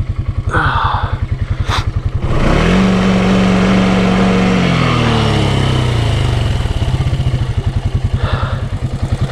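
Can-Am Outlander 700 ATV's single-cylinder engine idling with an even, steady thump. About two seconds in it speeds up, holds the higher revs for a few seconds, then drops back down to idle.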